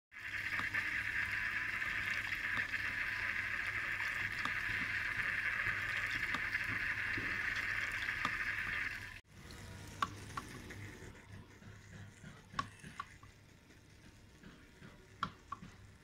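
Water from a small bamboo fountain splashing steadily from a bamboo spout onto pebbles, with a low hum underneath. About nine seconds in it cuts to a much quieter trickle with scattered drips.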